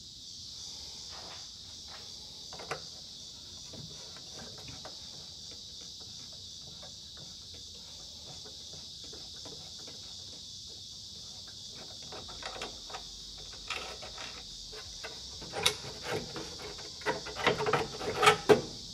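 Steady high chirring of crickets, with scattered clicks and knocks from hand tools working on bolts. The clicks and rattles come thicker and louder over the last few seconds.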